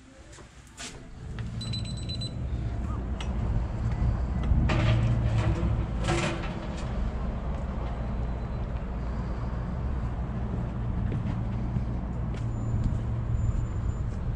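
A glass shop door opens with a click, then a steady low outdoor rumble of wind on the microphone and traffic takes over, with a couple of brief knocks about five and six seconds in.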